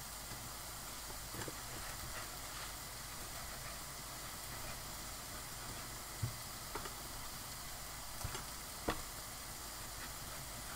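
Faint, steady sizzle of diced chicken frying on low heat in a frying pan, with a few sharp knocks of a knife on a wooden cutting board as bacon is sliced.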